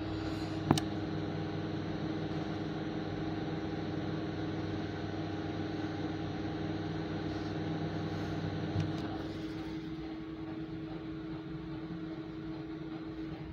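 Panasonic microwave oven running, a steady hum with a sharp click under a second in and a smaller one near 9 s, after which the lower part of the hum drops away and it runs a little quieter.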